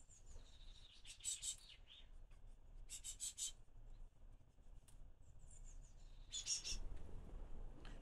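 Blue tits calling: three short bursts of rapid high notes, about a second in, three seconds in and near the end, with fainter thin high calls between them.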